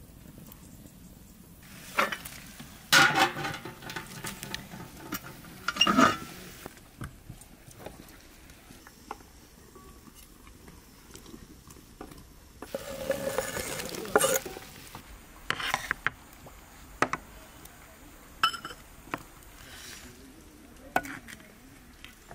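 Metal pots and utensils clattering and knocking at intervals, with a stretch of sizzling from a hot wok about thirteen seconds in.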